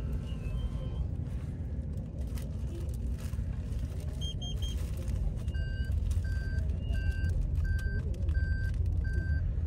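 Street traffic rumble of passing cars. A quick triple beep sounds about four seconds in, and from about halfway a steady electronic beep repeats about one and a half times a second.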